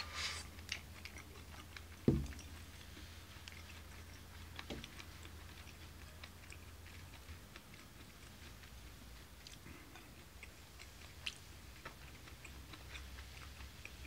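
A person chewing food, with small mouth clicks scattered through, and a single thump about two seconds in.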